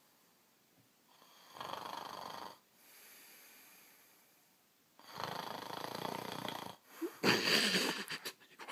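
A man snoring: three loud, rasping snoring breaths, about a second in, at about five seconds, and the loudest near the end, with a softer breath between the first two.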